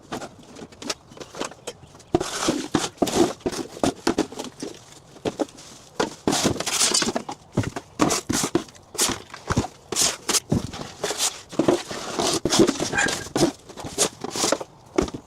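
Garage clutter being handled and moved: a busy run of knocks, clunks and clatters of hard objects, with rustling and shuffling steps in between.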